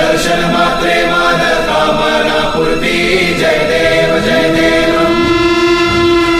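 Music: a group of voices singing or chanting over held, layered notes. About four seconds in, a steady held note comes in with repeated falling pitch sweeps, as the track moves toward electronic dance music.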